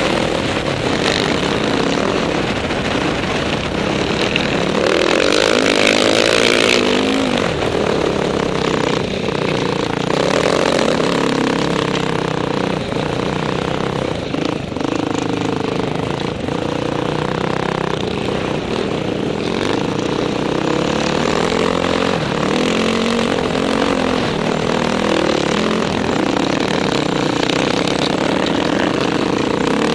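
Dirt bike engine heard close from the rider's own bike, its revs rising and falling continuously while riding.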